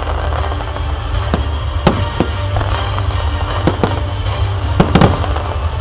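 Aerial fireworks shells bursting with sharp bangs every second or so, the loudest pair about five seconds in, over the display's music soundtrack.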